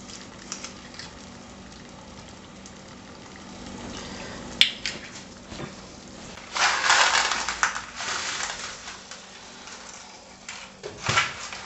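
Saucepan of salted water boiling steadily on a gas burner. A sharp click comes about four and a half seconds in, and a louder rustling stretch comes about seven seconds in, with a shorter one near the end.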